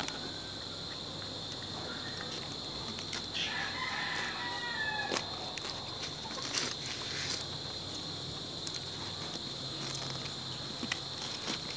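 A rooster crows once, a call of about two seconds starting about three and a half seconds in, over a steady high-pitched drone. Scattered light clicks and taps of a knife cutting meat on a wooden board.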